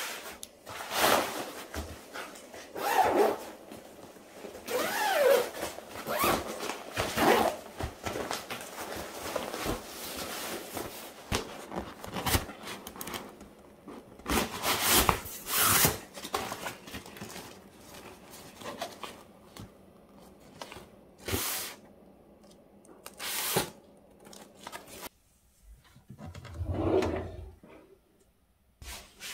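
Rustling and scraping of an IKEA STUK fabric storage box being unfolded and its stiff side supports slid into place, in irregular bursts. Near the end, a wardrobe drawer is slid open.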